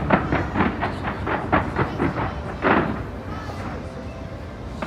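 Aerial fireworks bursting in quick succession: a rapid series of sharp bangs over a continuous low rumble, thinning out after about three seconds.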